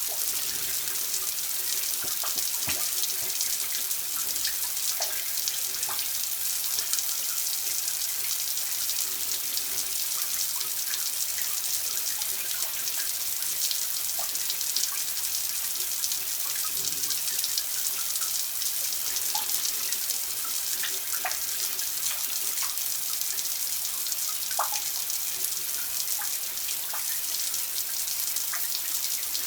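Steady running water, a constant hiss with scattered small plinks of drops.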